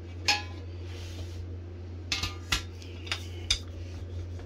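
Wooden rolling pin knocking and rolling on a wooden board as puff pastry dough is rolled out: a few short, sharp wooden knocks, one near the start and a cluster between about two and three and a half seconds in, over a steady low hum.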